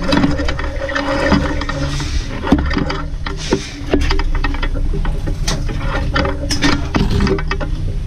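Rescue rigging clicking and creaking as webbing straps and rope pay out to lower a rescuer down a deep well, with irregular clicks and knocks over a steady low hum.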